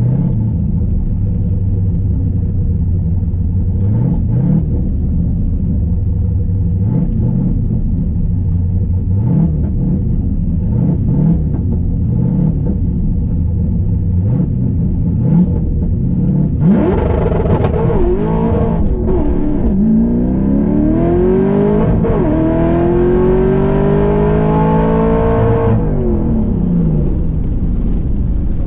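Drag-race car's engine heard from inside the cabin: idling with a few short throttle blips, then about 17 seconds in a full-throttle launch where the revs rise and fall as the tyres spin badly and the engine bogs after a short shift. It then pulls steadily higher through the gear for several seconds before the throttle is lifted and the revs drop near the end.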